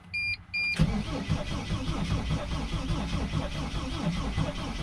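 Mercedes Sprinter diesel engine being cranked by its starter in an even, steady rhythm without catching, after a few quick dashboard warning beeps in the first second. The van is not starting on a broken fuel line and a weakening battery.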